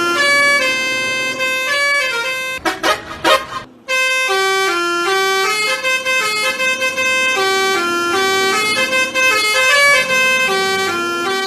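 Basuri telolet horn, the musical vehicle horn used on Indonesian buses and trucks, playing a melody in held notes that step up and down. About three seconds in, the tune breaks into a few short rapid blasts and drops out for a moment, then resumes.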